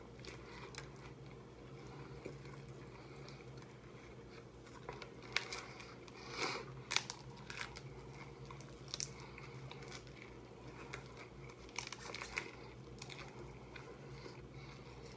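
Crunching and chewing as hard-shell tacos are bitten into and eaten fast: irregular crisp crunches, thickest and loudest about five to seven seconds in and again around twelve seconds.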